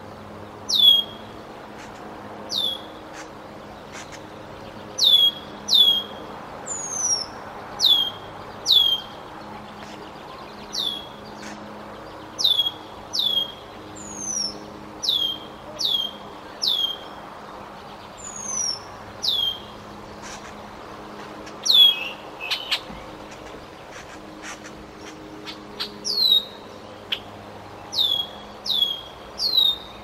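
Red-winged blackbird giving loud, sharp down-slurred alarm calls about once a second, often in pairs, with an occasional rising-then-falling call: mobbing a perched juvenile bald eagle.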